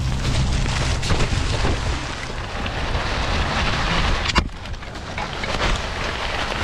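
An electric dirt bike's knobby tyres crunching and crackling through wet leaves, mud and twigs on a hill climb, with one sharp knock about four and a half seconds in.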